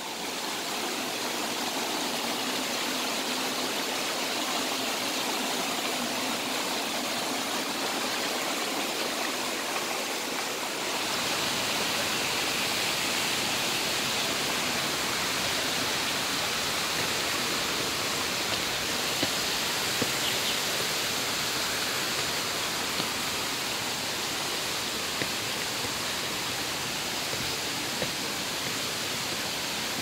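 Steady rushing of a forest stream and waterfall spilling over boulders. About eleven seconds in the rush grows fuller and deeper, and a few faint taps come near the end.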